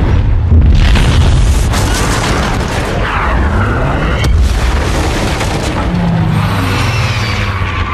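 Bombing raid: heavy rumbling bomb explosions with the siren whine of Stuka dive bombers, falling in pitch about three seconds in and rising again near the end.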